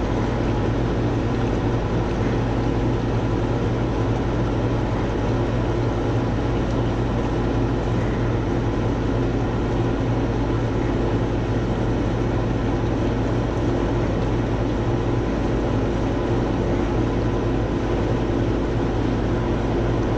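Air-conditioning air handler running: a steady blower whoosh with a constant low hum that does not change.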